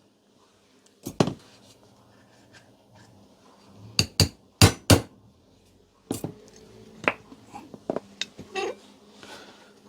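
Sharp knocks and metallic clinks of hand tools and small metal parts while a loose power cable is refitted where it enters an air compressor. There is a pair of loud knocks about a second in and two more pairs around four and five seconds, then lighter clicks and rattles.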